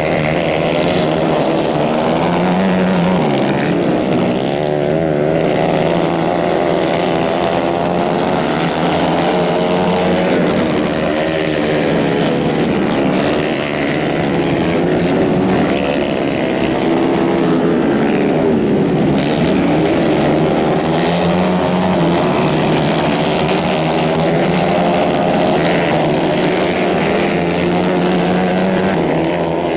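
Several 150 cc racing kart engines running together at high revs, their overlapping pitches rising and falling as the karts accelerate out of and lift into the corners.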